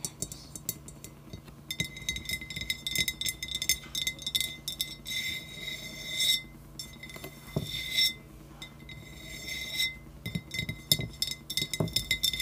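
Long fingernails tapping and scratching quickly on a hard pink bottle-shaped jar, the bottle ringing at a high pitch under the taps. The tapping comes in flurries, with short pauses in between.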